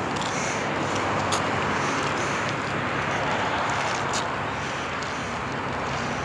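Steady rush of highway traffic, with a couple of faint clicks about a second in and again about four seconds in.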